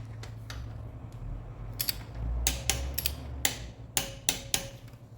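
Small torque wrench being set and then ratcheting a cylinder-head bolt to 2 kg: a series of sharp metallic clicks, a few with a brief ring, coming thicker in the second half.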